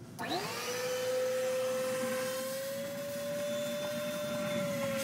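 A Bucket Head wet/dry shop vacuum is switched on: its motor spins up with a quickly rising whine just after the start, then runs steadily.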